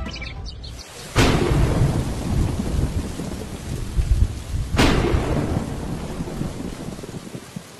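Thunderstorm: steady rain falling on soil, with two sudden thunderclaps, one about a second in and one near five seconds in, each fading out slowly under the rain.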